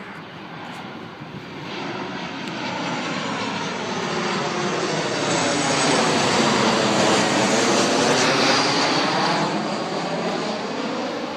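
Boeing 737 jet airliner passing low overhead on its landing approach, its engines' noise swelling to a peak about six to nine seconds in, then fading. A swirling, sweeping tone runs through the sound as it passes over.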